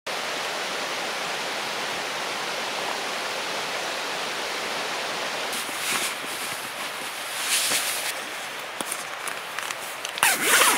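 Steady hiss throughout, with nylon sleeping bag fabric rustling from about five seconds in as a person shifts inside it on a camp cot, loudest near the end.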